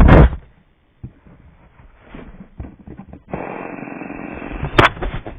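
A loud thud as a hammer is set down, a few small handling clicks, then a fidget spinner whirring steadily from about three seconds in, with a sharp click near the end.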